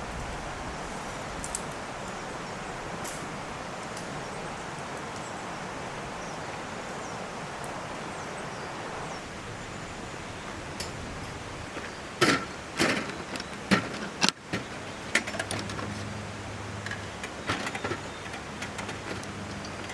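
Steady rushing of a mountain stream, with a run of sharp clicks and knocks starting a little past the middle, and a low hum coming in under them.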